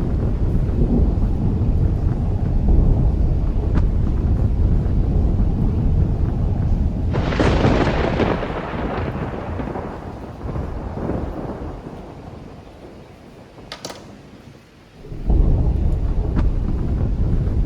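Thunder: a sudden deep rumble that rolls on for several seconds, with a sharper crack about seven seconds in that dies away. A second rumble of thunder starts near the end.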